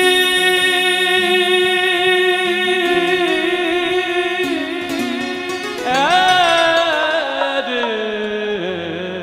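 Devotional bhajan music: steady held instrumental notes, then about six seconds in a male voice sings a long wordless line that rises and falls away.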